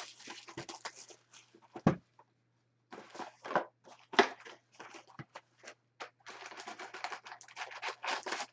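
Crinkling, tearing and scratching of plastic wrap and cardboard as a sealed box of trading cards is unwrapped and its packs are pulled out, in irregular bursts with sharp clicks. There is a short pause about two seconds in, and denser rustling from about six seconds on.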